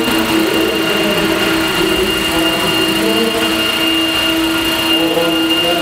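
Radio-controlled scale model of a Bell 206 helicopter in flight. Its drive and rotors make a steady whine, a thin high tone held over a lower hum.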